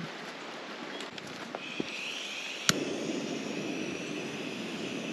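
Handheld butane gas torch: gas hisses on about two seconds in, a single sharp click of the igniter, then the lit flame runs with a steady rushing hiss as it is played onto the campfire wood.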